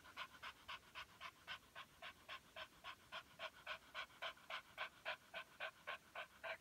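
Poodle panting rapidly and evenly, about four breaths a second, during a pain attack from hydronephrosis.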